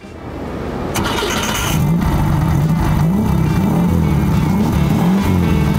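1971 Volkswagen Beetle's engine starting and then running, its pitch rising and falling over and over as it is revved.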